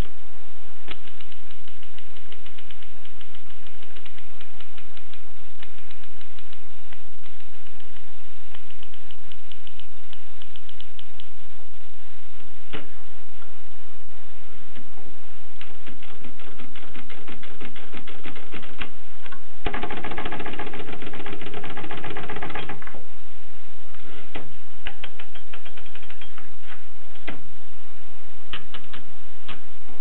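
Rheinmetall portable typewriter being typed on: quick runs of sharp keystroke clacks, with a louder, dense rattle of about three seconds about two-thirds of the way in.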